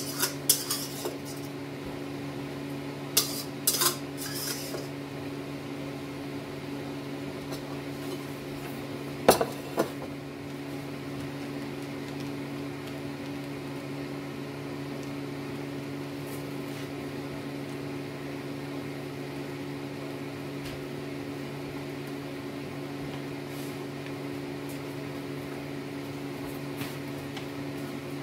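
A steady electrical appliance hum, with a few sharp clinks and knocks in the first ten seconds, two loudest close together about nine seconds in.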